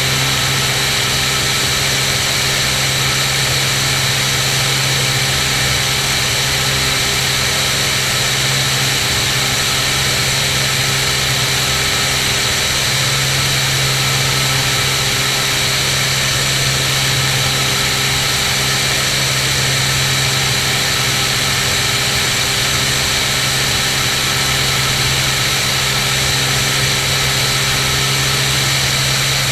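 Cirrus SR22's six-cylinder Continental piston engine and propeller running steadily in flight, an even drone with a strong hiss and no change in pitch.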